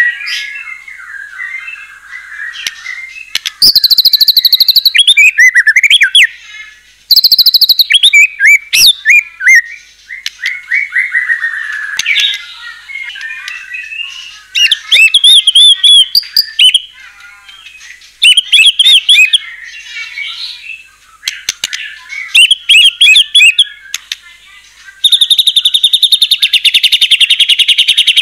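White-rumped shama (murai batu) singing a varied song in full voice: softer whistled phrases alternate with loud, rapid trills that come in bursts of one to three seconds, with a longer trill burst near the end. It is the kind of song used to provoke other shamas into singing back.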